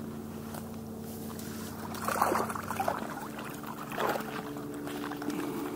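A mesh fishing keepnet holding fish is handled and set down, with short bursts of water splashing and trickling from the mesh about two seconds in, again around three seconds and about four seconds in. A steady low motor hum runs underneath, changing pitch slightly about four and a half seconds in.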